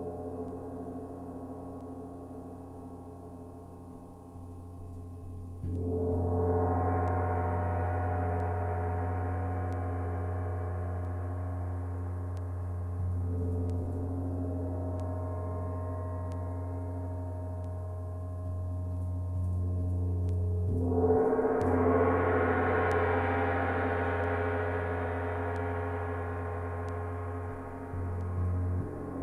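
A large gong played with a soft mallet: each stroke swells into a dense shimmering wash that slowly rings out, with big strokes about six seconds in and about three quarters of the way through and a lighter one in between. A steady low hum sustains underneath.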